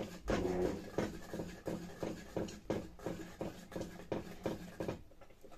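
A ladle stirring a steaming pot on a metal stove, knocking and scraping irregularly against the pot's sides a few times a second.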